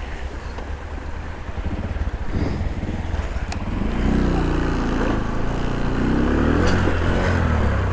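Motorcycle engine running over a steady low rumble. About four seconds in, the engine gets louder and its pitch rises and falls.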